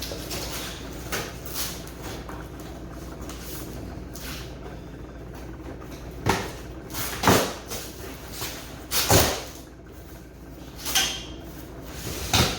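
Cardboard packaging being handled and opened: a few short, sharp scrapes and knocks, mostly in the second half, as parts are pulled from the box.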